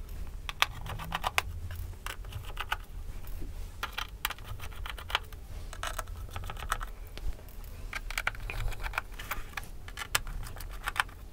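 Small screwdriver turning out the bottom-panel screws of an ASUS UX303LA laptop's aluminium base: irregular clusters of small clicks and ticks as the bit engages and turns the screws.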